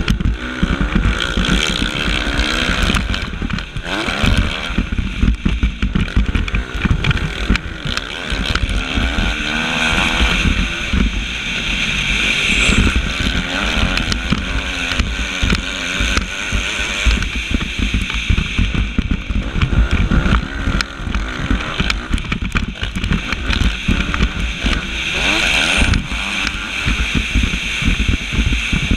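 Suzuki motocross bike's engine racing, its pitch rising and falling as the throttle opens and closes, heard through an onboard GoPro microphone. Constant knocks and buffeting on the mic run through it.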